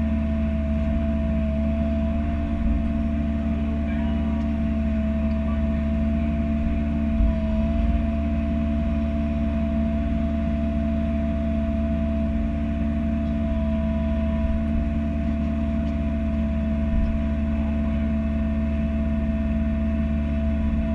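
Bobcat E42 mini-excavator's diesel engine running at a steady speed, with a constant whine over the engine drone.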